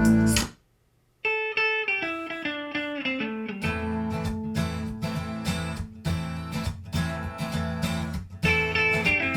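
Recorded music played back through homemade 5E AS-35 loudspeakers from a music centre. One song cuts off, there is about a second of silence, and the next song begins with a picked guitar line of descending notes. Bass and drums come in a few seconds later.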